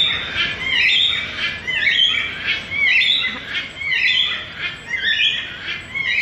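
Blue-and-gold macaw squawking, a rapid string of short calls about two a second, each sliding in pitch.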